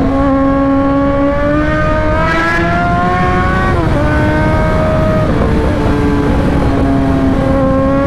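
Sport motorcycle engine pulling hard under acceleration, its pitch climbing and then dropping at a gear change about four seconds in, with another shift a little later before it holds steadier. Heavy wind rush runs underneath.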